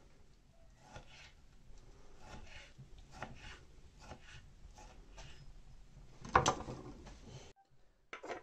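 Kitchen knife cutting a peeled kiwi on a wooden cutting board: a run of soft cuts and taps against the wood, with one louder knock about six seconds in.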